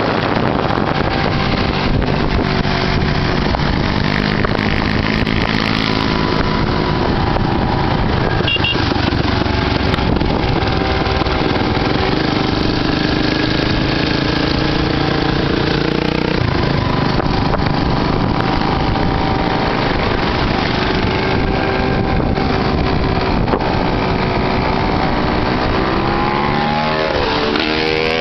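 Dirt bike and quad engines running at riding speed, their pitch shifting up and down as the riders work the throttle. Near the end one engine revs up in quick rising sweeps.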